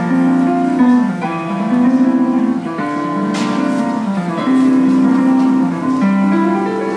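Electronic keyboard played with both hands: a melody of sustained notes over changing lower notes.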